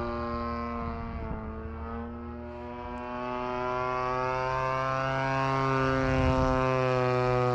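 Hangar 9 Ultra Stick RC airplane's motor running in flight with a steady pitched note. About a second or two in, the note dips slightly in pitch and level, then rises and gets louder toward the end as the plane comes back toward the field.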